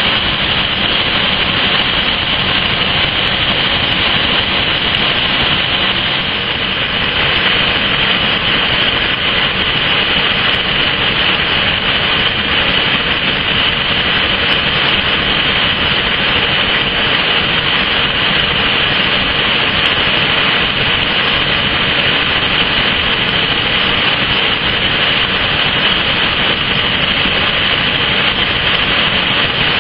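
Steady, unchanging roar of foundry furnace equipment while molten metal pours, with a slight dip about six seconds in.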